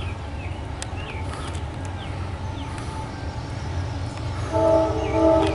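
Steady low rumble of an approaching freight train. About a second before the end, a locomotive's multi-chime horn starts sounding a chord of several notes.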